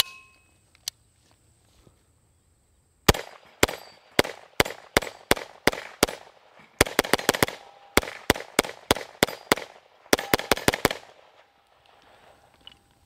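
A Grand Power Stribog SP9A3 roller-delayed 9mm pistol fired in quick semi-automatic strings, about two dozen shots beginning about three seconds in and stopping about eleven seconds in, the last string the quickest. A single sharp metallic click comes right at the start, as the gun is readied.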